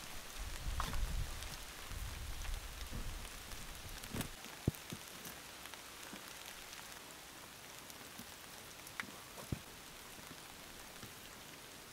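Hands setting stones into wet clay on a clay-and-stone stove: a low rumble of handling at first, then a few sharp knocks of stone on stone, over a steady faint hiss with scattered small ticks.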